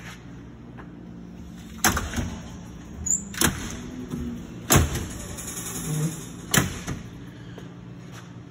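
Stainless steel doors of a Duke double-stack commercial gas convection oven being swung and shut: four sharp metal clanks about a second and a half apart, with smaller knocks between them.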